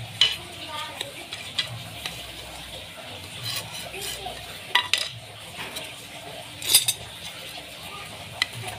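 Scattered clicks, taps and knocks of hard frame parts and tools being picked up and set down on a workbench, with a short clatter about two-thirds of the way through.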